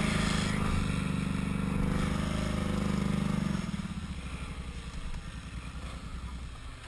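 ATV engine running steadily under throttle, pitch rising slightly. About three and a half seconds in the throttle comes off and it drops to a low idle with distinct exhaust beats.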